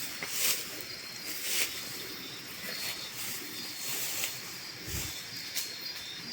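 Insects chirping steadily in the background over a hiss, with a few brief rustles spaced through and a low thump near the end.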